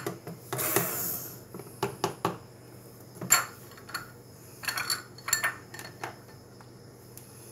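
Kitchen utensils clinking and scraping, a spoon against a mixing bowl. There is a short scrape about a second in, then a string of separate light clinks.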